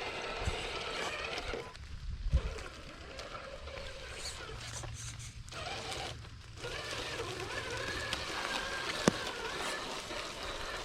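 Traxxas TRX-4 Sport RC crawler's electric motor and drivetrain whining, its pitch rising and falling with the throttle and dropping out twice as it stops. Sharp knocks come about two seconds in and near the end as the truck bumps over rocks.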